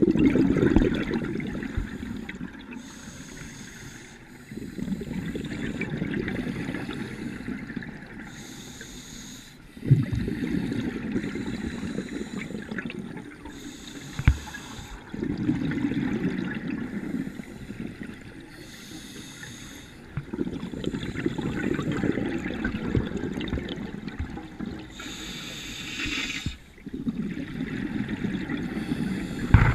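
Scuba diver breathing through a regulator underwater: a short hiss on each inhale, then a few seconds of bubbling exhaust bubbles, repeating about every four to five seconds. Two sharp knocks of gear, about a third of the way in and near halfway.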